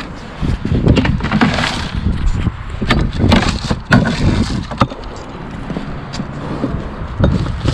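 Empty beer cans and glass bottles knocking and clinking as they are handled and carried, a string of short sharp knocks over steady rustling and bumping of clothing against the microphone.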